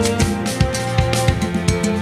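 Background music with a steady drum-kit beat over sustained instrument notes.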